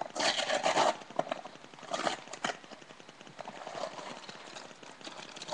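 Cardboard cookie-mix box being pried open by hand: the flap scrapes and tears, in a burst in the first second and another about two seconds in, with a few light knocks and clicks between.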